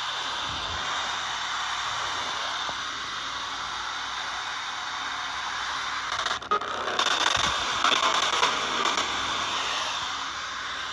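Steady radio static hiss. About six and a half seconds in it briefly drops out, then comes back louder and rougher for a few seconds.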